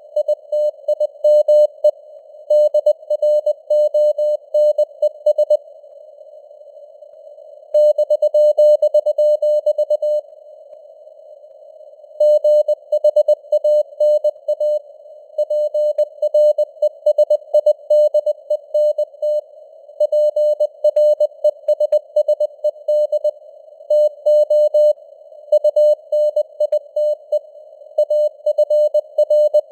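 Morse code sent at 20 words per minute as a single steady mid-pitched tone keyed on and off in dots and dashes, over a soft hiss of simulated radio noise. The keying stops for two longer pauses between words, about six and ten seconds in.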